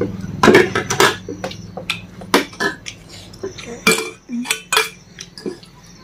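Cutlery clinking and scraping against a plate or bowl while eating, a string of irregular sharp taps, some of them ringing briefly.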